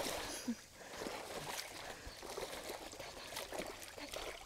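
Shallow stream water running, with light splashes and sloshes from people wading and reaching into the water with their hands to grab fish.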